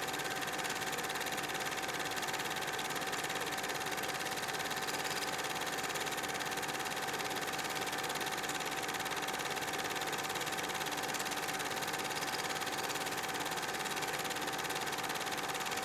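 An 8mm movie projector running: a steady mechanical whir with a constant hum and hiss.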